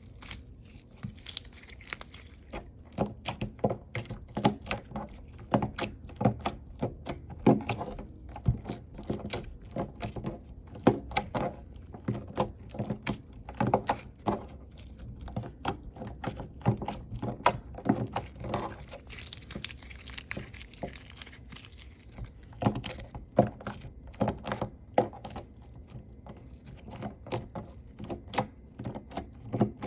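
Hands kneading and stretching clear slime with glitter mixed in, making a dense, irregular run of sticky clicks and small pops.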